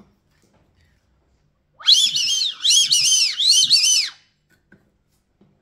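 Homemade duck-call whistle made from the brass head of a spent shotgun shell, blown in one shrill, high whistle of about two and a half seconds that swoops up and down several times. It imitates the call of whistling ducks (sirirí) to lure them while hunting.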